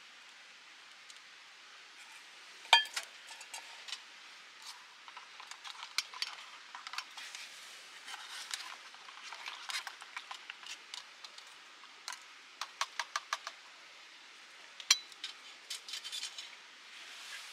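Small metal objects, like cookware and utensils, being handled: scattered clinks and knocks throughout. There is a ringing metallic clink about three seconds in and another about fifteen seconds in, with a quick run of light clicks a little before that.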